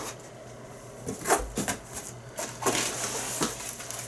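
Nylon plate carrier rustling and scraping against the inside of a cardboard box as it is handled and lifted out, in a few short, uneven rustles.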